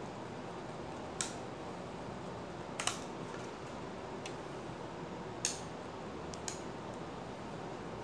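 A small screwdriver working screws into a laptop SSD's aluminium drive bracket: a handful of light, sharp metal clicks at uneven intervals over a steady hiss.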